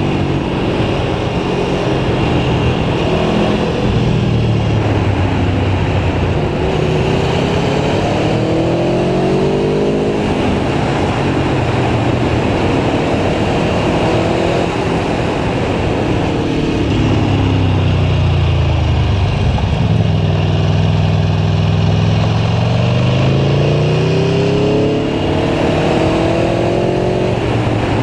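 Aprilia Tuono V4 1100 Factory's V4 engine under way, its pitch rising and falling again and again as the rider accelerates and backs off, over a steady rushing noise.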